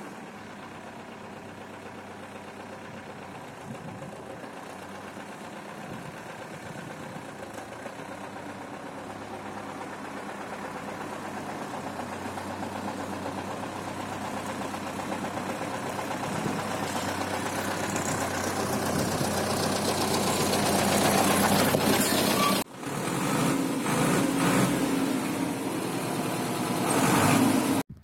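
Zetor tractor's diesel engine running steadily and growing louder as the tractor drives up close. There is a momentary drop in the sound about three-quarters of the way through.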